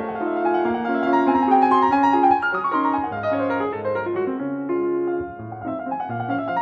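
Background piano music: a slow melody over held bass notes.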